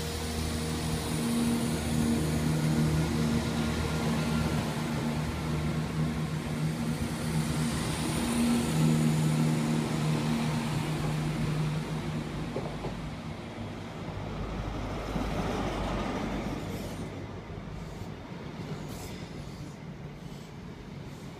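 Diesel train engines running steadily with a low hum. Later the coaches of an arriving CrossCountry HST roll slowly past with a low rumble and a few sharp wheel clicks.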